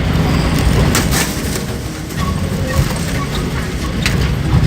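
Safari bus engine running as it drives over rough, hilly track, heard from inside the bus, with a few sharp rattles about a second in and again near the end.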